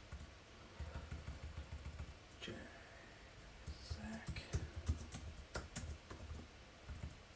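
Computer keyboard typing and mouse clicks, a scattering of sharp clicks through the middle, over a faint low rumble.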